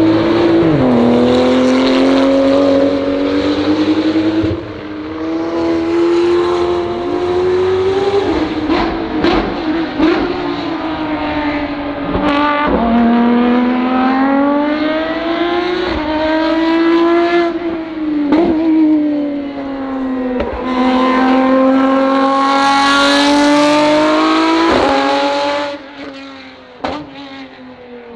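Track racing cars, a Porsche 935 and a Lamborghini race car among them, passing at speed. Their engines rev up and drop repeatedly, with brief breaks at the gearshifts. The sound grows quieter near the end as the last car pulls away.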